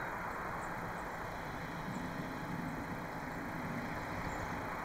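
C10 steam tank locomotive starting off slowly, with a steady hiss of steam from its open cylinder drain cocks.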